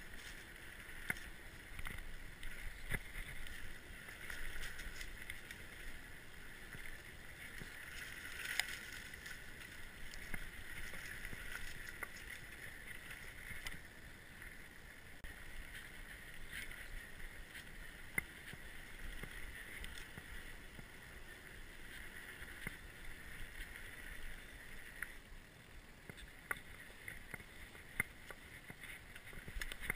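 Orbea Occam mountain bike rolling along a dry dirt singletrack: steady tyre and trail noise with frequent small knocks and rattles as the bike goes over bumps.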